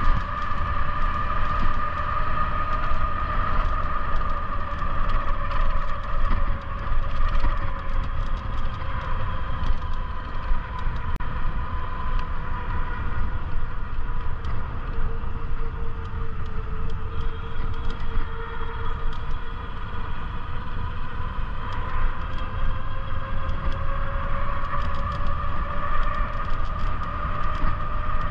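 Electric bike motor whining steadily under power, its pitch sinking slowly in the middle and climbing again near the end as speed changes, over a low rumble of wind on the microphone and tyres on concrete.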